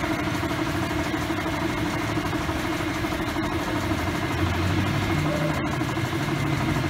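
Yamaha Sniper 150 single-cylinder engine, fitted with a dry clutch, idling steadily.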